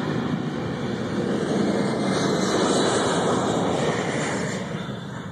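Air Force One, a Boeing 747 (VC-25A) with four turbofan engines, at takeoff power as it lifts off and climbs away. The jet roar swells to a peak two to three seconds in, then fades near the end.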